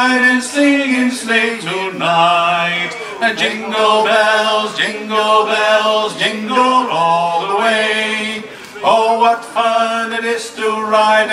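Two men singing a Christmas song together into a microphone, holding long notes, with a short breath between lines about eight seconds in.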